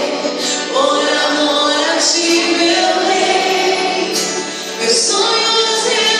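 Gospel song with a woman singing lead over instrumental backing and backing vocals.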